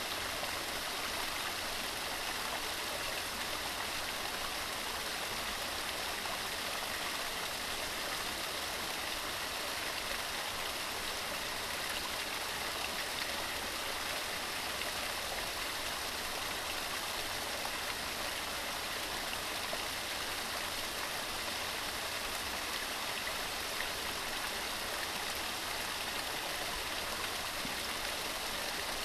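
Waterfall: falling water rushing and splashing in a steady, unbroken hiss with no pauses or changes.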